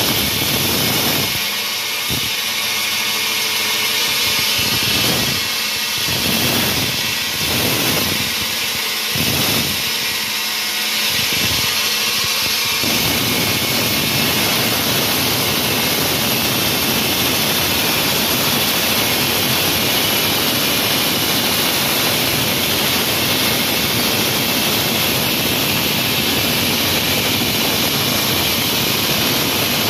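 Wall saw running at full speed: a loud, steady, high-pitched rush of motor and blade noise. The lower part of the sound comes and goes for the first dozen seconds, then holds steady for the rest.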